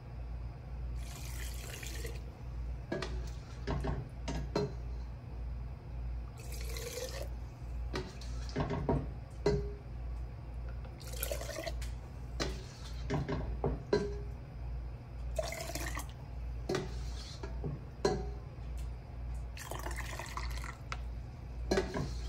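Hot broth ladled through a plastic canning funnel into a glass jar: five splashing pours about four to five seconds apart, with a metal ladle clinking against the stockpot between scoops.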